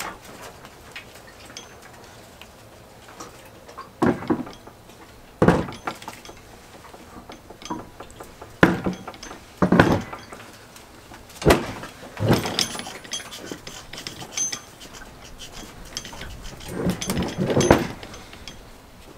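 Irregular metal clunks and knocks, a few seconds apart, as a long-tail mud motor's engine and mount are manoeuvred by hand and seated onto the boat's transom bracket. Some of the knocks have a short metallic ring.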